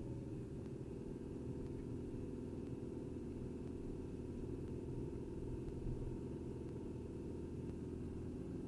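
Car engine and road noise heard from inside the cabin as the car drives along, a steady low hum.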